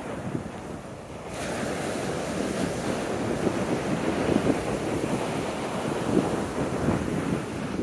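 Heavy Atlantic surf breaking and washing up a sandy beach, the rough, high waves of a tropical storm building offshore, with wind buffeting the microphone. The rushing grows louder a little over a second in.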